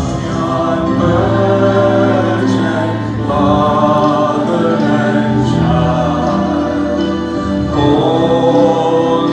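Many voices singing a slow hymn together in long held notes, the sound of a choir or congregation.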